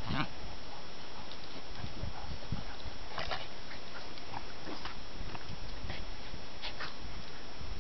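Two border terriers play-fighting, giving short, scattered dog noises over a steady background rush.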